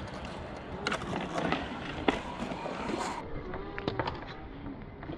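Trick scooter riding on a skatepark: wheels rolling on concrete with sharp clacks and knocks about once a second.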